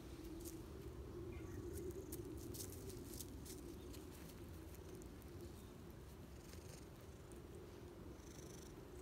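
Brown tabby cat purring steadily up close, with a few soft clicks near the middle as it grooms itself.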